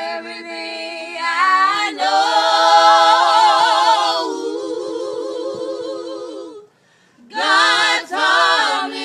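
Voices singing a cappella in harmony, holding long notes with vibrato. The singing stops briefly about two-thirds of the way through, then a short phrase is sung near the end.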